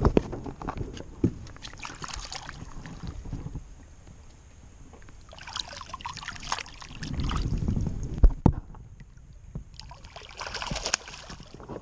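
Lake water splashing and sloshing as a caught largemouth bass is held over the side of an aluminium boat and released, in two spells of splashing. There are a few sharp knocks, the loudest a little past halfway.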